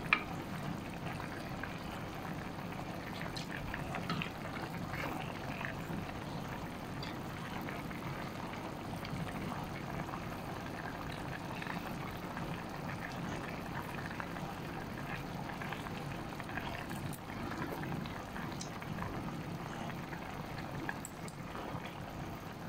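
Squid adobo boiling hard in a pan: a steady bubbling with small scattered pops as the vinegar-soy sauce cooks down.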